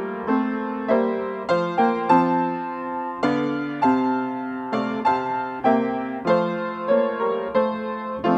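Slow, gentle piano music: a steady chain of struck chords and notes, each ringing out and fading before the next.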